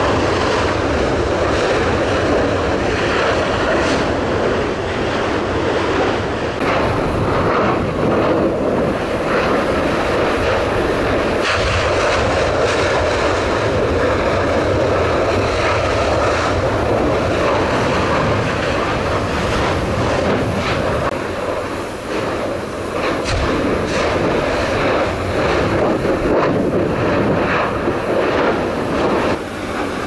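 A newly opened volcanic fissure erupting: a loud, steady rushing noise with a few short cracks scattered through it.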